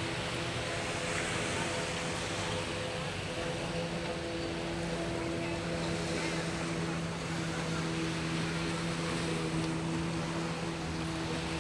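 Strong sea waves washing on a beach, a steady rushing noise, under a steady low motor hum.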